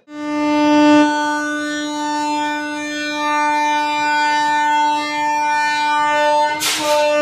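Indian Railways electric locomotive horn sounding one long, steady note as the train prepares to depart. A brief sharp crackle cuts across it near the end.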